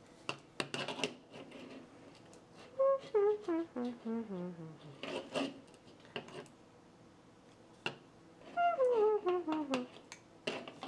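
Two runs of descending, stepped brass-like 'wah-wah' notes, a sad-trombone failure cue, with scattered sharp plastic knocks and clicks between them.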